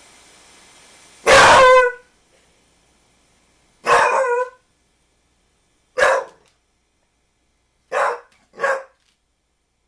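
American Pit Bull Terrier barking: five separate barks a second or two apart, the first the longest and loudest, the last two close together.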